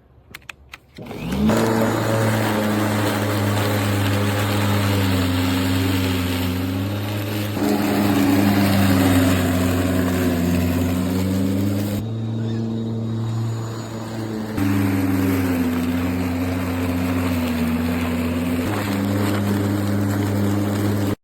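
American Lawn Mower Company 50514 11-amp corded electric lawn mower motor starting after a few clicks, spinning up about a second in, then running steadily with its pitch dipping and recovering now and then.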